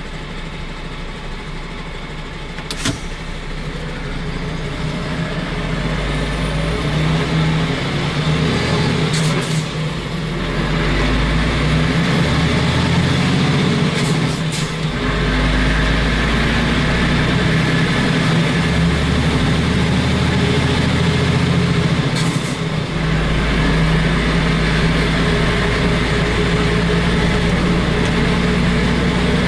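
Diesel engine of a semi-truck, loaded to almost 30 tonnes, pulling away and accelerating, heard through an open roof hatch. The engine note builds over the first several seconds, then drops and picks up again at several gear changes. A few short sharp clicks stand out above it.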